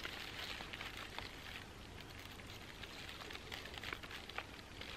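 Faint crinkling and rustling of a plastic bag and paper wrapping, with scattered small clicks, as a knife is worked into a salmon fillet to poke holes through it.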